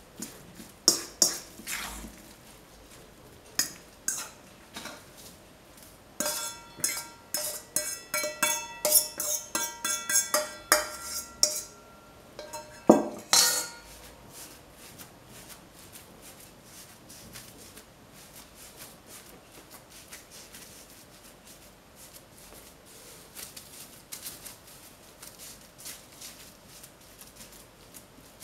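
A stainless steel mixing bowl clinking and ringing as a raw meatloaf mixture is scraped out of it, with one loud knock about 13 s in. After that, faint soft patting of hands pressing the minced meat flat on parchment paper.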